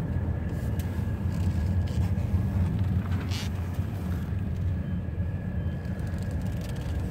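Steady road and engine rumble of a car being driven, heard from inside the cabin, with a faint steady high whine and a brief hiss a little over three seconds in.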